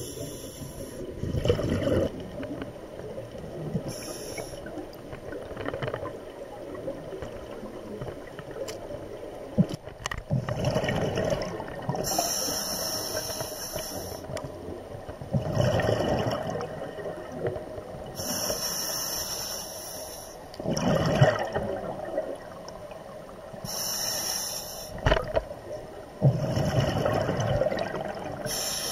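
Scuba diver breathing through an open-circuit regulator underwater: a hissing inhale through the demand valve, then a gurgling rush of exhaled bubbles, repeating about every five to six seconds.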